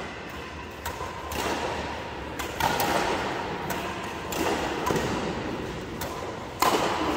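Badminton rackets striking the shuttlecock in a doubles rally: a string of sharp, irregularly spaced hits over a steady background murmur. The loudest hit comes near the end.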